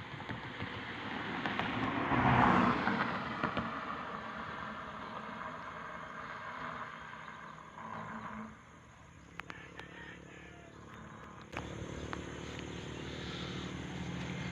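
A vehicle passing by, its noise swelling to a peak a couple of seconds in and fading away. Near the end a steady low engine hum sets in.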